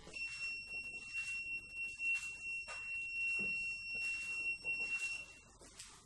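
An Arduino-driven 5-volt buzzer sounding one long, steady, high-pitched tone for about five seconds, then cutting off shortly before the end. It is the alarm of an RCWL-0516 microwave radar sensor that has detected movement through the cardboard box enclosing it.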